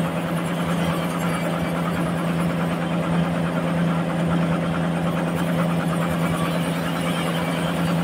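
Band sawmill running steadily with a strong, even hum as its vertical blade saws through a large trembesi (rain tree) log.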